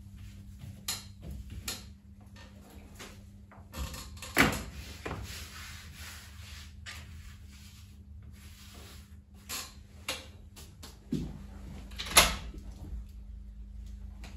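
Handling sounds at a stainless-steel workbench: scattered knocks and clicks as tools and shoe parts are picked up and set down, with a sharp knock about twelve seconds in. A steady low hum runs underneath.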